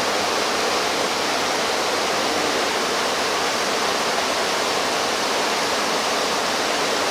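Rushing water, a loud, steady, even hiss with no change in level.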